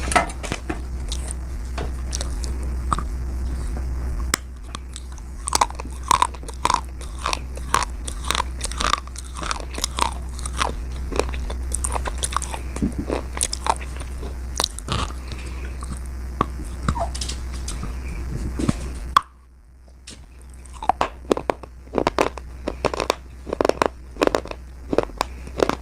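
Slate being bitten and chewed close to the microphone: rapid, irregular sharp crunches. A steady low hum sits under the crunching until a sudden cut about three quarters of the way in, after which the crunching goes on more densely.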